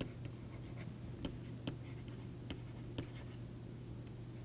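Faint, scattered clicks and taps of a stylus on a tablet screen while handwriting, over a steady low hum.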